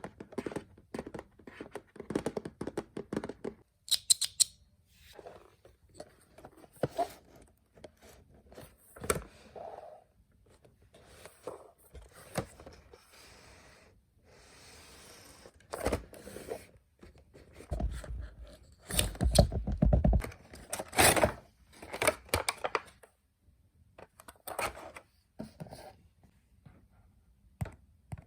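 Toy packaging being handled and opened by hand: irregular clicks, scrapes and rustling, with a few louder thumps a little past the middle.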